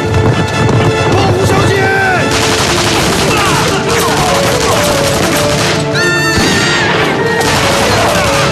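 Gunfire from a raid, crackling on and off amid shouting and screaming, with a high scream about six seconds in, all over dramatic music.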